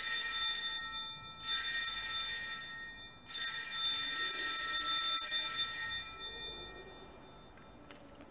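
A cluster of small altar bells (sanctus bells) rung three times in short shakes, the third ring longest and fading away, marking the elevation of the host at the consecration.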